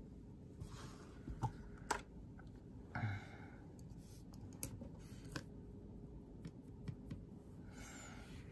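Scattered light clicks and taps of small painting supplies being handled and set down on a tabletop, with a few short soft rustles.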